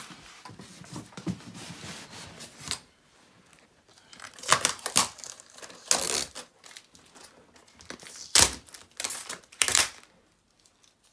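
Packing tape being peeled and ripped off a TV stand, with plastic crinkling: softer rasps at first, then several loud tearing rips between about four and ten seconds in.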